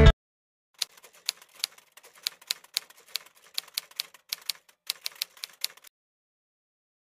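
Typewriter sound effect: a run of irregular key clicks, a few per second. It starts about a second in and stops about six seconds in.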